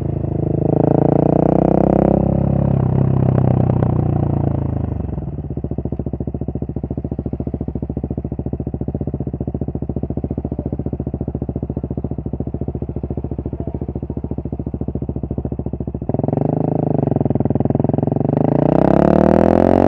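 2023 KTM 690 SMC R's single-cylinder engine breathing through an aftermarket Arrow header and muffler: running at part throttle, then rolling off, with the revs falling about four to five seconds in, to a steady idle at a stop. About sixteen seconds in the revs rise again as the bike accelerates away.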